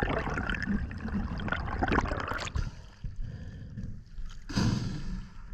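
Water rushing and bubbling over an underwater camera as a spearfishing diver rises from depth. The camera breaks the surface about two and a half seconds in, and the sound turns to quieter water slapping, with a short louder burst of water or breath noise near the end.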